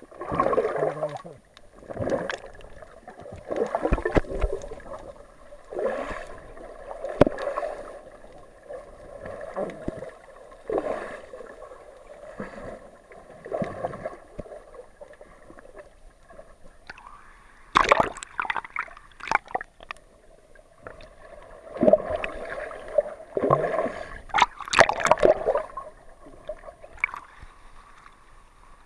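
Water sloshing and gurgling around an action camera's waterproof housing as it moves through the water, in surges every second or two, with a few sharper knocks and louder surges in the second half.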